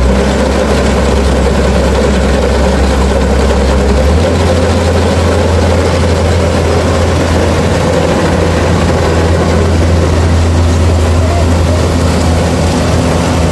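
Kubota DC-70 combine harvester running loud and close, its diesel engine at a steady working speed under the rattle of the harvesting machinery. The engine note steps up a little about four seconds in.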